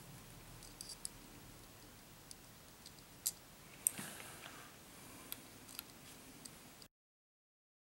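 Scattered small metallic clicks and ticks as steel scope-ring cap screws and a small hex key are handled on TPS steel rings, the two sharpest about three and four seconds in. Near the end the audio cuts to dead silence.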